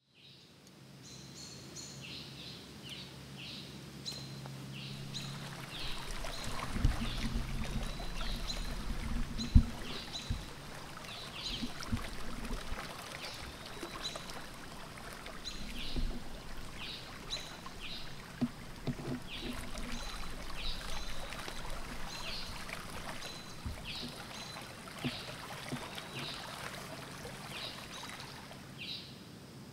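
Outdoor nature ambience: flowing river water with splashing, and birds chirping in short repeated calls throughout. The water swells in about five seconds in, with a few heavier splashes in the first third and again around the middle.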